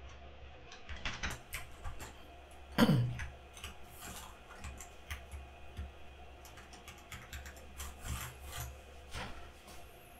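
XDA-profile keycaps being pressed onto a mechanical keyboard's switches: irregular small clicks and clacks, with one louder clack about three seconds in.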